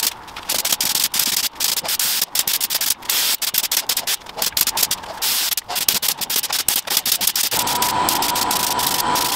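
Compressed-air gravity-feed spray gun hissing as it sprays clear coat, in many short spurts as the trigger is worked, then steadily for the last two seconds.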